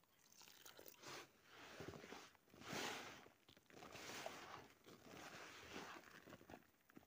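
Hands kneading and stirring damp groundbait mixed with boiled pearl barley in a fabric bucket, just moistened with water. The sound is faint, in uneven strokes roughly once a second.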